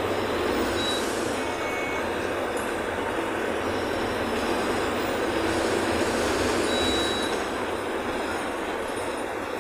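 Steady running noise of a city bus heard from inside the cabin: engine rumble, road noise and rattling of the body, with a few short high squeaks.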